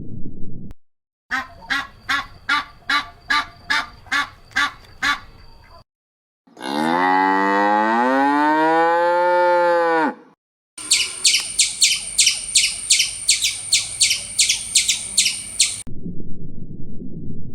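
A cow mooing once, a long call that rises and then falls in pitch. Before it comes a run of about ten short repeated animal calls, and after it a fast run of high, sharp calls, with a low rumble at the start and the end.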